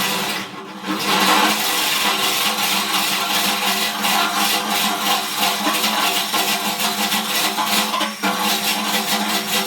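Electric drill running a hole saw that cuts into the steel of a 44-gallon drum, the motor holding a steady hum over the grating of the teeth; it slackens briefly about half a second in, then runs on steadily under load.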